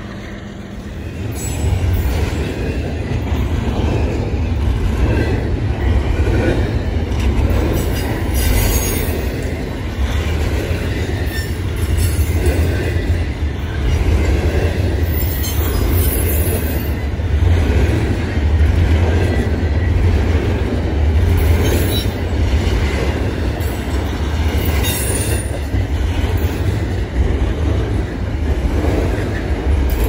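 A train rolling past close by: a steady low rumble of wheels on rail that builds up about a second and a half in, with wheel squeal and clicking over the rail joints scattered through it.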